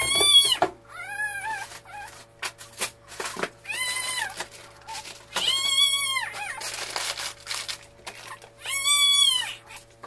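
A pet animal's high-pitched whining cries, about five of them, each rising and falling, with light knocks of items being set on fridge shelves between them.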